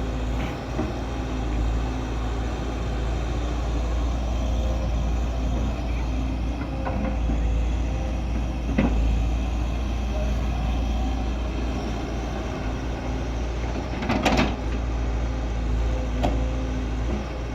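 Heavy diesel engine of earthmoving machinery running steadily, with a few sharp knocks, the loudest about fourteen seconds in.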